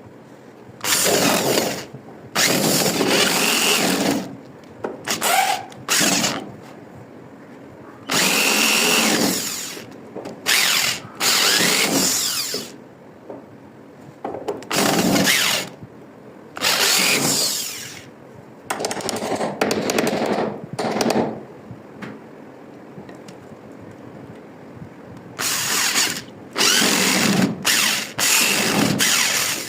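Electric drill run in repeated bursts of a second or two at a time, stopping and starting about a dozen times with short pauses between.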